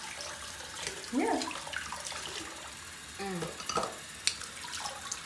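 Bathroom sink tap running, a steady rush of water into the basin. Two short vocal sounds break in, one about a second in and one just past three seconds, and a sharp click comes past four seconds.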